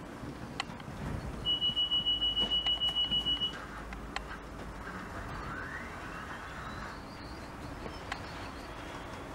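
A high electronic beeping, one steady tone pulsing about six times a second for about two seconds, with a few light clicks and a faint rising whistle afterwards.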